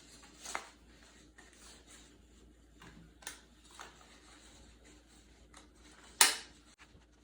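Construction paper rustling and being handled in soft short scrapes. About six seconds in comes one loud, sharp stapler snap as the paper ends are stapled together into a ring.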